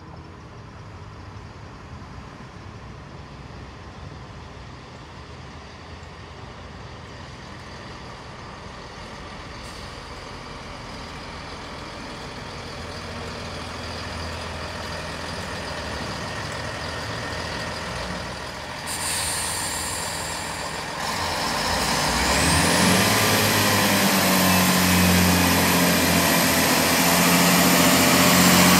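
Great Western Railway Class 165 Turbo diesel multiple unit approaching along the platform, its engine and wheel noise growing steadily louder. From about 22 seconds in it runs loudly close by, with an engine hum and a high whine that rises in pitch and then holds.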